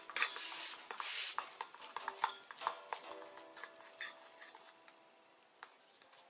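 Metal spoon stirring and scraping a thick paste in a stainless steel bowl, with sharp clinks of spoon on bowl, busiest in the first three seconds and then fading. Faint background music.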